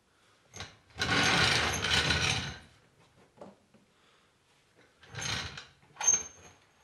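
Hydraulic trolley jack being set under a car's sill and its handle worked, with metal clattering and rattling. One long rattle lasts about a second and a half, starting about a second in, and two shorter clatters come near the end.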